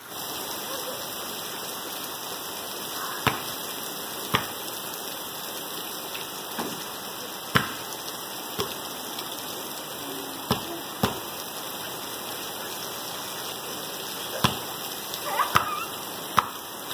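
Heavy rain falling steadily on concrete, with the sharp thuds of a basketball bouncing on the wet driveway, about nine at irregular intervals.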